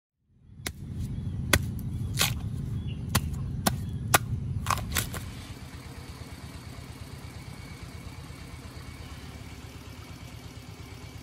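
A machete chopping into a young bamboo shoot at its base: about eight sharp chops over the first five seconds, over a low rumble. After the chops only a low steady background noise remains.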